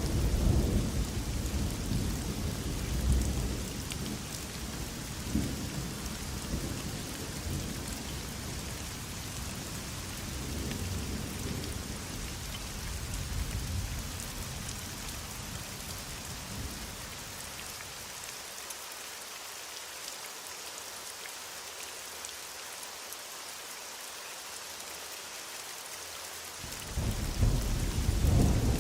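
Heavy rain falling steadily, with low rolling thunder. The thunder dies away about two-thirds of the way through, leaving only the rain's hiss, then a loud rumble of thunder starts near the end.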